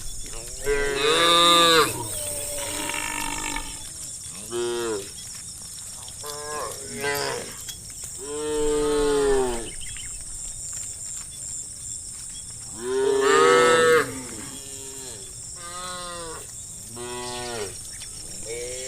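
Several cows mooing over and over, about a dozen calls that each rise and fall in pitch, some overlapping. The loudest calls come about a second in, around nine seconds in and around thirteen seconds in, over a steady high hiss.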